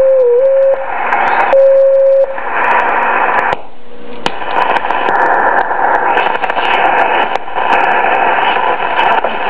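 Drake 2-B shortwave receiver being tuned by hand: a steady beat-note whistle, broken once, over the first two seconds, then hiss and crackling band static with faint signals.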